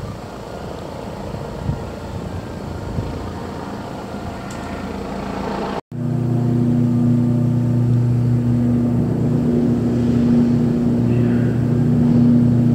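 Steady low hum of the Ocean Arrow catamaran ferry's engines running while moored, with several held tones, starting abruptly about six seconds in. Before that, general outdoor background noise with a few faint knocks.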